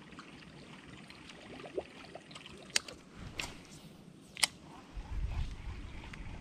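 Baitcasting reel being cranked to retrieve a lure, its mechanism whirring faintly, with a few sharp clicks, the loudest about four and a half seconds in. A low rumble rises near the end.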